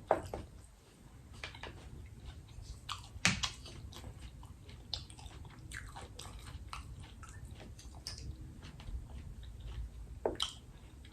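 Close-up mouth sounds of a person eating: biting and chewing food, with short, sharp wet clicks, the loudest right at the start and about three seconds in.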